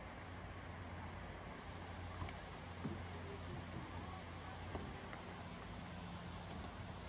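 Faint outdoor ambience: a cricket chirping regularly, about every two-thirds of a second, over a steady low hum, with a few soft footstep crunches on gravel.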